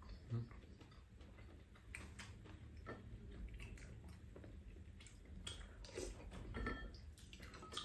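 Quiet eating sounds: chewing, with scattered light clicks of spoons against ceramic bowls.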